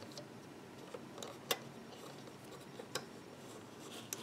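Faint, scattered small clicks as loom bands are stretched onto the pegs of a plastic rainbow loom. The loudest click comes about a second and a half in.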